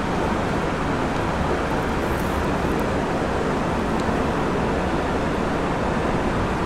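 Steady, even rushing background noise with no rhythm or change, with one faint click about four seconds in.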